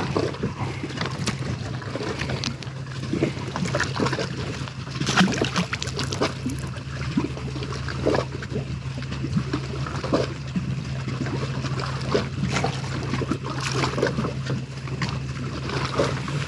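Water trickling and splashing over a steady low hum, with scattered light knocks and clicks.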